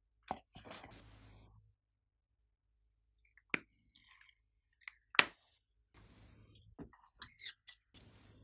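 Glossy slime being worked by hand, giving scattered sticky clicks and short crackly stretches, the sharpest click about five seconds in.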